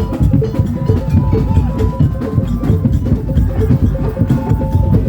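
Loud music driven by drums and knocking percussion in a busy rhythm, with a few held and gliding melody notes above it.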